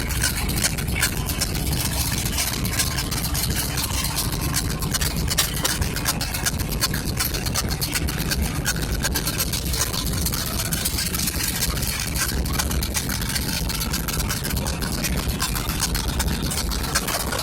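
Engine idling steadily with a rapid, even ticking or clatter riding on top: the unwanted noise the '408' is making.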